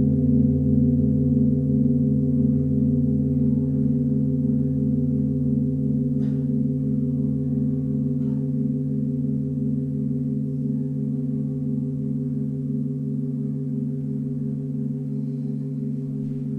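A deep gong tone ringing on and slowly fading, several pitches sounding together with a steady throbbing waver.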